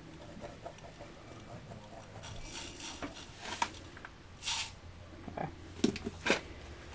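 Salt poured from the spout of a round salt canister into a measuring spoon, heard as short hisses, the clearest about four and a half seconds in. A few small clicks and knocks of kitchen items follow near the end.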